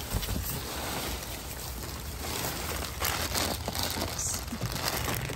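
Thin plastic bags rustling and crinkling in quick, uneven crackles as gloved hands rummage through a dumpster full of them; a packaged snack bag is handled near the end.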